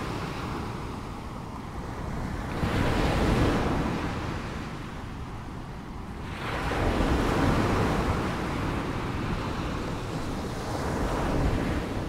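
Ocean surf: small waves washing in over a rocky shore, the wash swelling and fading every few seconds, loudest about three seconds in and again around seven seconds.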